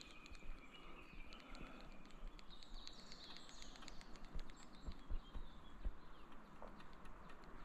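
Faint bird chirps over a quiet outdoor background, with scattered small ticks and clicks.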